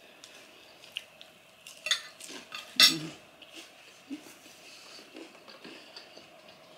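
Metal spoon and fork clinking and scraping on a ceramic dinner plate, a few separate clicks with the loudest clink a little under three seconds in, followed by softer knocks of dishes being handled.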